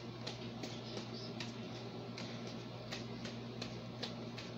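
Light, quick taps of fists striking a small punching ball in a fast timing drill, about three a second, over a steady low hum.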